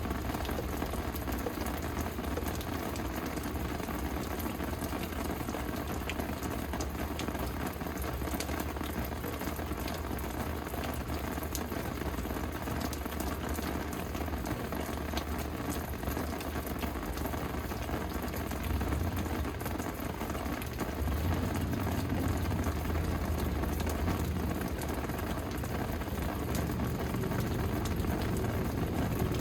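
Steady rain falling, a dense even hiss with scattered drop ticks. A low rumble swells under it in the second half.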